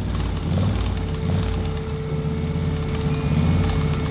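An engine running with a pulsing low rumble and a steady hum above it.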